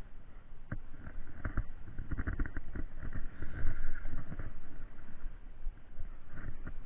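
Water slapping and sloshing against the hull of a small boat in irregular low thumps, with a few short knocks and clicks.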